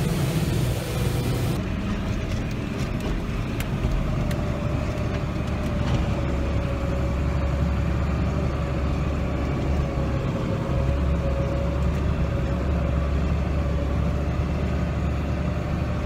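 Combine harvester running steadily under load, heard from inside its cab: a deep engine drone with a faint steady whine over it.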